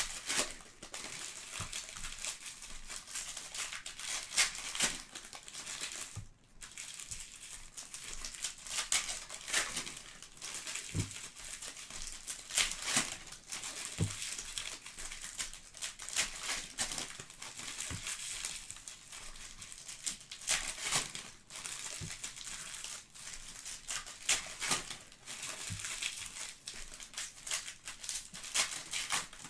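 Foil wrappers of Panini Prizm trading-card packs crinkling and tearing as the packs are ripped open by hand, a steady run of crackles with a brief pause about six seconds in.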